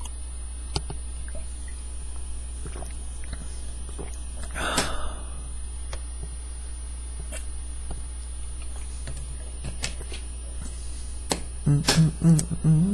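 A man drinking from a plastic bottle close to a headset microphone: small swallowing clicks and a brief gulp about five seconds in, over a steady low electrical hum. Near the end, as the bottle comes down, come a few short low voiced sounds from the drinker.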